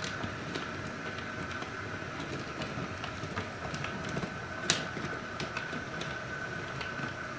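Model railway diesel locomotive hauling a breakdown crane train slowly over newly laid track on a test run. A steady high motor whine runs under irregular light clicks of wheels over rail joints and pointwork, with one sharper click about two-thirds of the way through.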